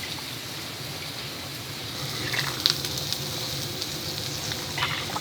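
Seasoned eel sizzling steadily on a grill, with a few light clicks about two and a half seconds in.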